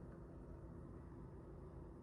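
Faint steady low hum with no distinct events.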